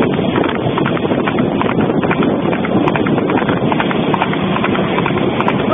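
Horse's hooves clip-clopping rapidly on an asphalt road as it pulls a two-wheeled cart at speed, over a steady rush of noise.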